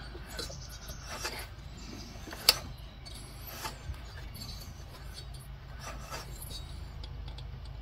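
Briggs & Stratton 550EX engine being turned over slowly by hand through a couple of revolutions to recheck valve clearance: quiet rasping and rubbing with a few faint clicks, and one sharper click about two and a half seconds in.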